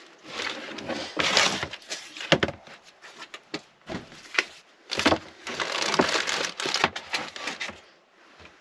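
Crinkling and rustling of a sheet of sound deadening material being handled and laid out for measuring, in irregular bursts with a few sharp clicks and knocks.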